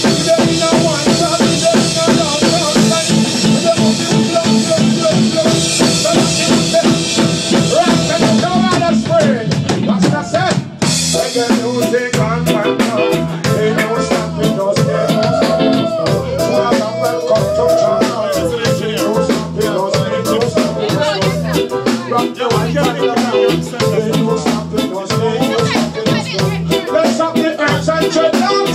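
Live reggae band playing loud, with drum kit and bass and a male singer on microphone. About eleven seconds in the music breaks briefly, then a new groove starts with a pulsing bass line and crisp drum hits.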